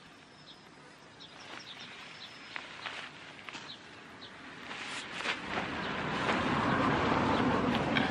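Quiet outdoor ambience with scattered light ticks and a few faint high chirps. Over the second half a rustling noise close to the microphone grows louder and is the loudest thing near the end, as someone moves on a picnic blanket right next to it.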